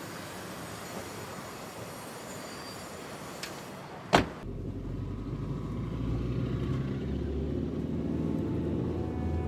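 A taxi's rear door slams shut once, loudly, about four seconds in. After that comes the steady low rumble of the car, heard muffled from inside the closed cabin.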